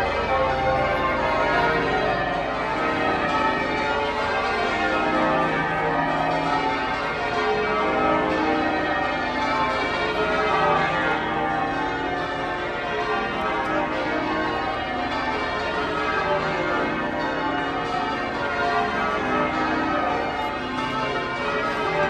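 Change ringing on St Paul's Cathedral's ring of twelve church bells, whose tenor weighs more than three tonnes. The bells strike continuously in a dense, overlapping peal with no pause.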